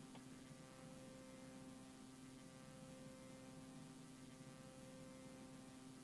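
Near silence: a faint, steady hum with light hiss from an old VHS tape recording.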